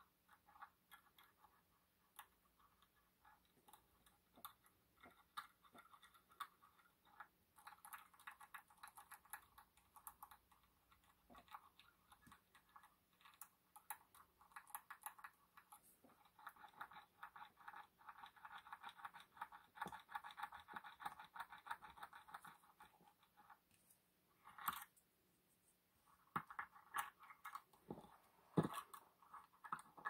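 Lock pick scraping and clicking inside an EVVA MCS magnetic cylinder lock, picked up closely by a contact mic. It is a run of small clicks and scratches as the pick works over the rotors, thickening into a steady scrape for several seconds past the middle, with a few sharper knocks near the end.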